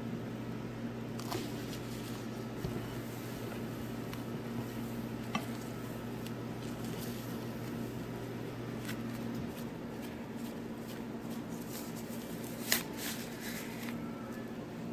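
Wet squishing of a plastic-gloved hand squeezing and stirring an egg and palm sugar custard mixture in a glass bowl, with a few light clicks and one sharper click near the end.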